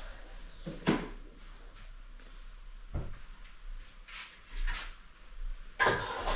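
A few separate sharp knocks and clicks, then a busier patch of clatter near the end.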